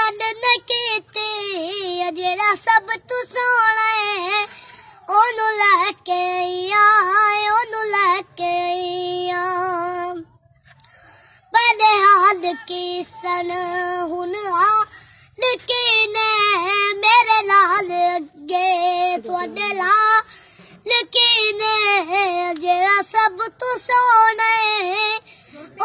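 A young boy singing a naat, an Islamic devotional song, solo with no instruments, in long ornamented notes that bend and waver. He breaks off for about a second around ten seconds in, then sings on.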